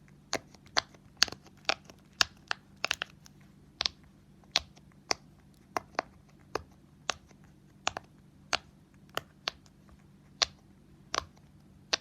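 Silicone push-pop fidget toy shaped like a Christmas present, its bubbles pressed one after another: a string of sharp pops, about two a second at an uneven pace.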